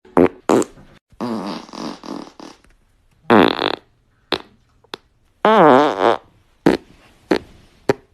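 A quick run of about a dozen separate farts. Most are short, sharp blasts; two longer ones, about three and five and a half seconds in, waver up and down in pitch.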